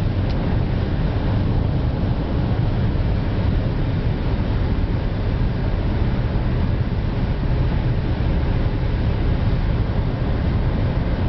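Steady road and engine noise heard inside a vehicle moving at highway speed: an even, mostly low drone of tyres and motor that runs unbroken.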